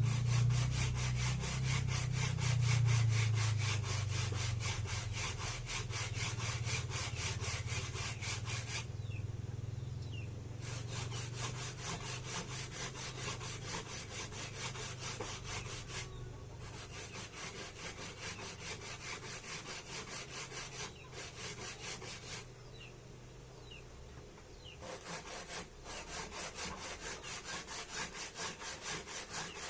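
Food being grated by hand on a grater: quick, rhythmic rasping strokes with a few short pauses. A low hum at the start fades away over the first half.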